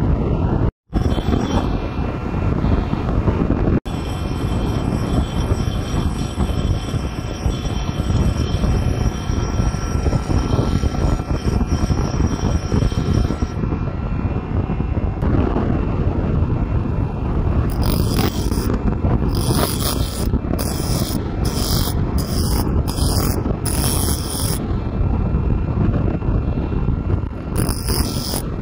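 Electric bench grinder running steadily with its abrasive wheel grinding. In the second half, a quick series of short, high grinding strokes comes about once or twice a second as the wheel is worked into the gullets between a bandsaw blade's teeth to sharpen them.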